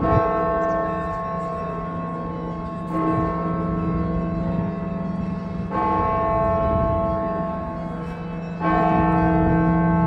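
Russian Orthodox church bells ringing for Easter: four strikes about three seconds apart, each setting off a chord of long ringing tones over the steady low hum of a large bell.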